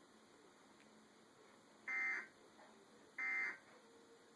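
Electronic alert beeps of a TV weather warning: two short beeps a little over a second apart, the first about two seconds in.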